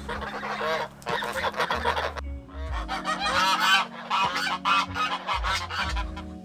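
A flock of grey and white domestic geese honking, many calls overlapping, with a brief lull about two seconds in; the honking stops near the end.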